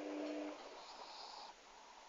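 Dog snoring: a pitched, buzzing snore that stops about half a second in, followed by a soft breathy hiss of air for about a second.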